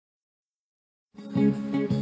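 Silent for about the first second, then instrumental music starts.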